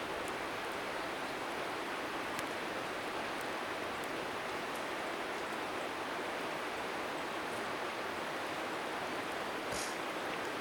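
Steady rushing of a flowing river, with a few faint sharp pops and crackles from a wood bonfire; the loudest pop comes near the end.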